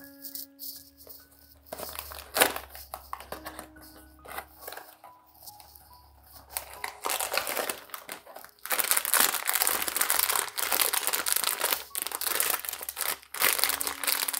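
A cardboard blind box handled and opened with a few sharp clicks, then a foil blind-box bag crinkling and tearing open from about halfway through, louder and denser over the last few seconds.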